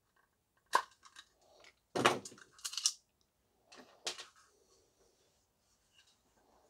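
Hard plastic vacuum housing parts being handled, clicking and knocking together: a sharp click about a second in, a heavier knock with a short rattle around two seconds in (the loudest), and another knock about four seconds in.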